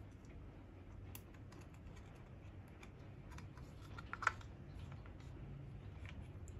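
Light, scattered clicks and taps of a spring airsoft rifle's plastic and metal internals being handled and fitted by hand, with one sharper click about four seconds in.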